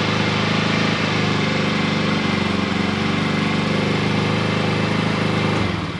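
Peugeot Django 125 scooter's single-cylinder four-stroke engine idling steadily, running fine on a freshly fitted fuel filter with fuel drawn through. It stops near the end.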